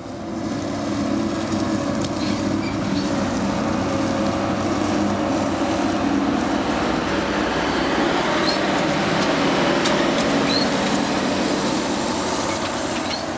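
Claas combine harvester with a maize header, running steadily: a constant drone of engine and machinery.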